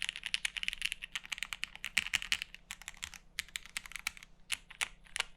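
Typing on a Mode Sonnet 75% custom mechanical keyboard: a fast, dense run of keystrokes, thinning to slower separate key presses about halfway through.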